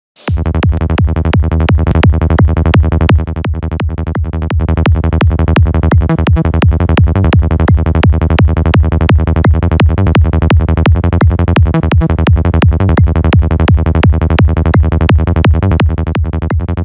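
Electronic loop at 170 BPM: a fast, rapidly pulsing Sylenth1 high-tech psytrance bass patch with a kick, heavy in the low end, run through FabFilter Saturn to glue kick and bass together. It drops a little in level about three seconds in.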